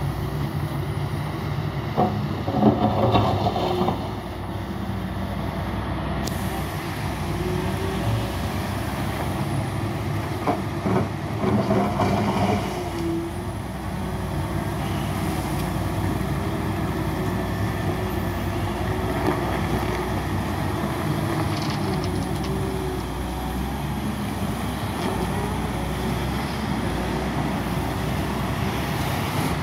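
Volvo excavator's diesel engine running steadily. It swells louder twice as the machine works, about two seconds in and again around ten to twelve seconds in, each time starting with a short knock.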